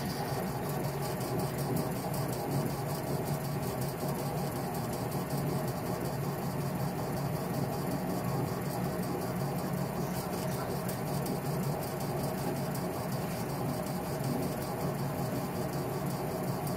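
Laser engraver running: a steady whir of its fans and motors that holds unchanged throughout.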